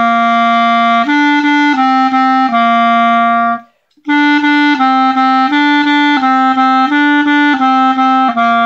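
Clarinet playing a simple beginner melody of short, separately tongued notes, with longer held notes closing each of two phrases and a short break between them about three and a half seconds in.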